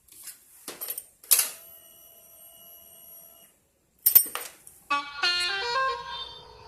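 A bicycle bell struck once, ringing for about two seconds. After a click, a modified musical horn on the bicycle starts a 'telolet'-style tune of stepped, rising and falling notes near the end.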